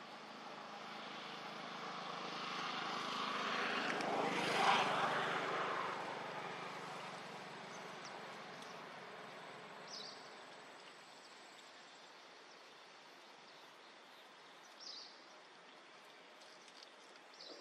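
A distant engine noise swells to a peak about five seconds in and then fades away, as something passes by. Three short, high chirps follow later on.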